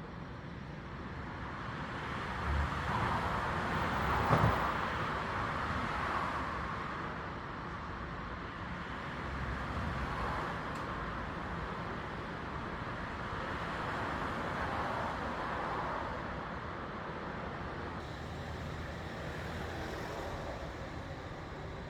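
Road traffic passing, a rushing noise that swells and fades several times, with a brief knock about four seconds in.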